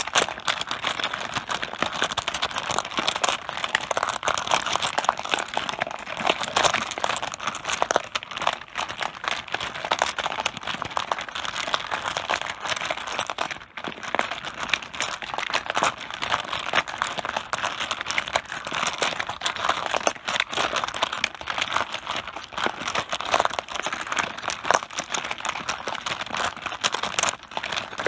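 Mahjong tiles clacking against one another on a tabletop in a dense, continuous clatter, with a brief lull about fourteen seconds in.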